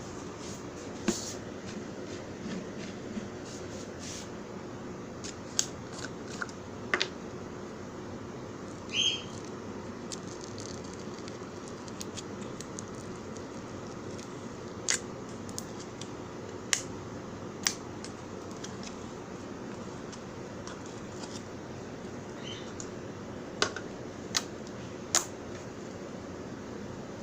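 Slime being handled, giving scattered sharp clicks and pops, about ten of them, spread unevenly over a steady low hiss with a faint hum.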